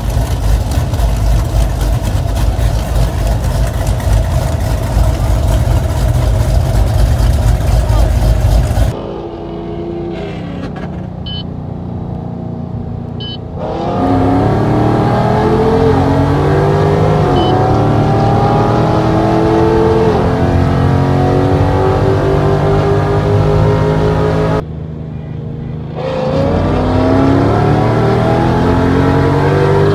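A car engine idles up close with a heavy low rumble. Then, heard from inside a car, engines run hard through the gears in a highway roll race: engine notes rise again and again, each broken off by a shift. A fresh run of rising revs comes near the end.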